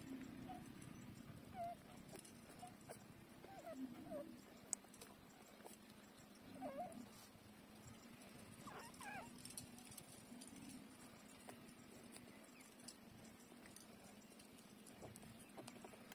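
Week-old puppies nursing, giving faint, brief squeaks and whimpers now and then, with a short run of higher squeals about nine seconds in.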